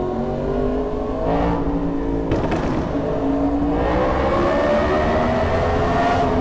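Yamaha MT-10's crossplane inline-four with a Racefit aftermarket exhaust being revved and accelerating, echoing in a tunnel; the engine pitch climbs steadily through the second half.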